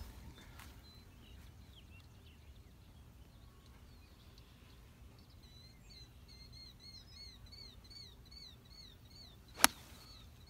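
A golf iron striking the ball off the tee: one sharp crack near the end. Before it, a bird sings a run of repeated short chirps, about two a second.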